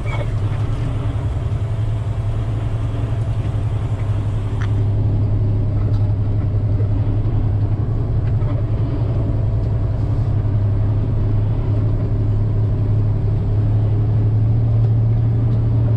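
Log truck's diesel engine running under way, heard from inside the cab as a steady low drone. It gets somewhat louder about five seconds in.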